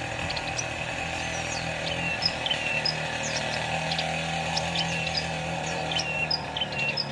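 Prinias (prenjak) giving short, high chirping calls, a few each second and some sliding down in pitch, over a steady low hum.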